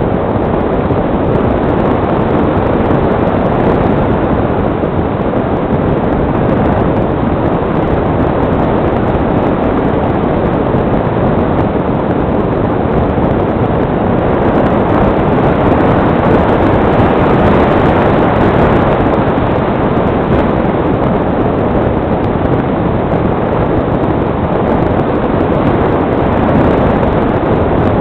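Steady rushing airflow noise on the microphone of a camera mounted on a model glider in flight, swelling slightly about two-thirds of the way through.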